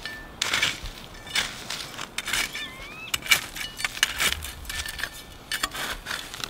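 Machete blade scraping through loose clay soil in short strokes, about one a second, pulling dirt up into a mound around a cassava stem.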